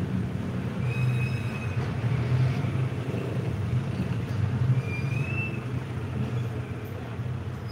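A vehicle engine running with a steady low rumble, with a few short high squeaks over it, one rising about five seconds in.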